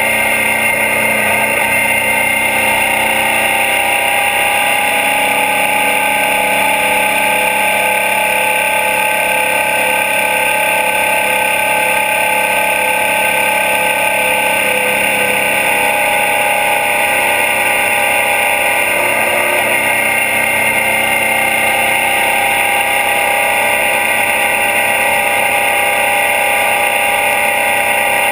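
Suzuki DL650 V-Strom's V-twin engine running steadily at cruising speed, heard up close from the engine guard.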